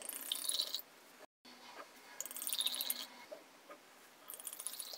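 White wine poured from bottles into glass wine glasses: three short splashing pours, each lasting under a second.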